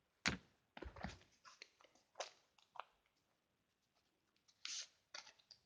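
Faint handling noises of makeup packaging: scattered soft clicks and short crinkling rustles as brushes are taken from the box.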